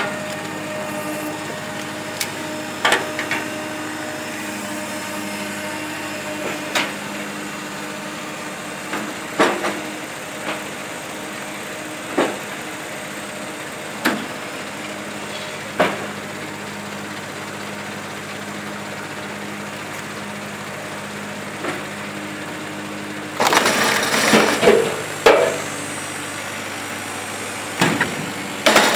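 Binderberger Gigant 40 firewood splitter running with a steady hum, with scattered knocks every few seconds. About 23 seconds in, and again near the end, a log is forced through the cross-shaped splitting wedge: loud cracking and crushing of wood.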